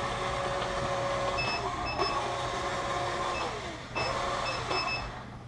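Robot vacuum's motors running with a steady whir, with short high beeps now and then. The whir drops briefly just before four seconds, starts again, and stops near the end.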